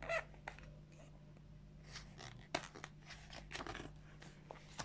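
Faint rustling and light taps of a picture book's paper pages being handled and turned, in several short bursts.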